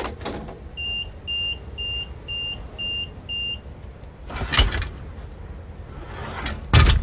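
Six short, evenly spaced high electronic beeps, about two a second, as from a phone after a call is ended. Then two louder sudden noises follow, one about four and a half seconds in and one at the very end.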